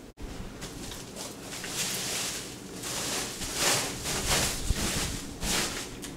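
Rustling and swishing of plastic wrapping in uneven bursts while a plastic-wrapped flat-screen TV is handled, with a short low knock about five seconds in.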